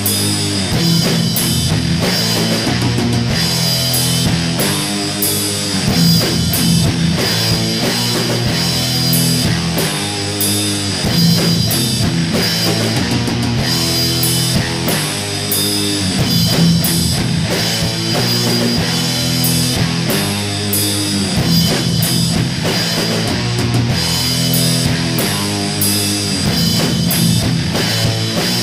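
Hardcore punk track playing loud and steady: distorted electric guitars over a pounding drum kit.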